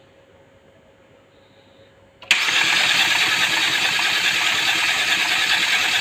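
Starter motor cranking a freshly rebuilt Hyundai G4NA 2.0-litre four-cylinder engine with its spark plugs out, spinning it over to build oil pressure. It cuts in suddenly a little over two seconds in and runs evenly from then on, loud against the faint room sound before it.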